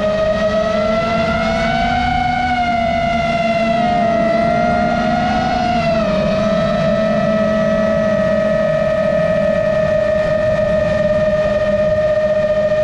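GepRC MOZ-7 long-range FPV drone's motors and propellers whining steadily in flight, heard from the camera on board. The pitch rises a little and wavers between about one and six seconds in, then holds steady over a low rush of air.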